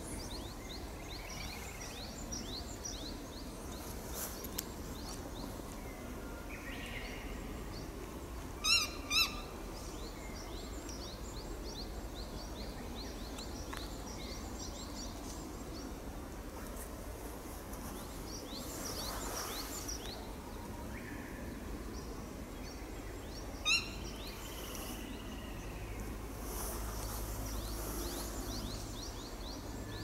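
Ruddy-breasted crake giving short, sharp single "kyo" calls: two about half a second apart roughly nine seconds in, and one more about twenty-four seconds in. Other small birds chirp faintly and quickly throughout.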